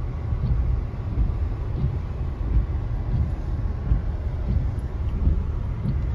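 Low, uneven rumble heard from inside a slowly moving car in strong storm wind: gusts buffeting the car and the microphone over the car's road noise.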